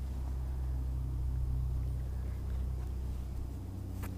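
Low, steady engine hum, with one sharp click about four seconds in.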